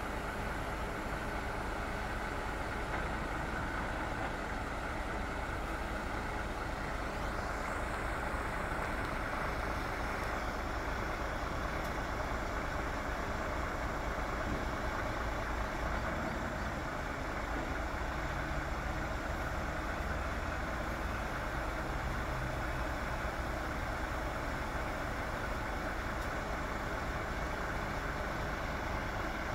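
Diesel engine of a Unic crane truck running steadily, turning the crane's hydraulics while it holds a container in the air.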